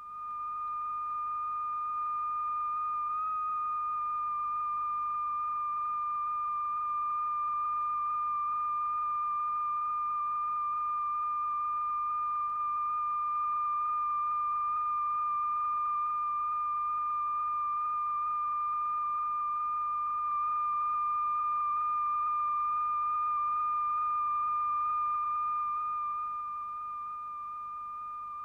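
A steady, high, pure electronic tone holding one pitch: the continuous tone that sets the diaphragm vibrating in a cymatics experiment. It wavers slightly upward about three seconds in.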